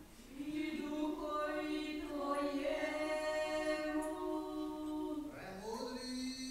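Church choir singing a liturgical chant a cappella in long held notes, several voices together; about five seconds in the voices rise into a new phrase.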